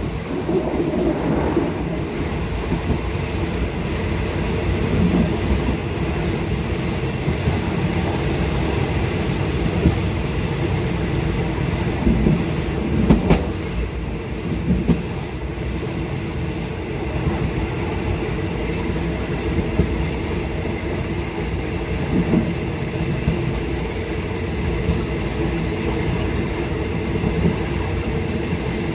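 A train running along metre-gauge track, heard from the rear of the last carriage: a steady rumble of wheels on rail, with a few sharper clacks now and then.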